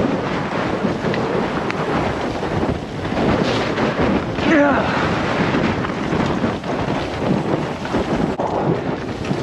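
Wind buffeting the microphone of a camera riding on a mountain bike descending a dirt woodland trail, with steady tyre rumble and the bike rattling over roots and bumps. A brief wavering call cuts through about four and a half seconds in.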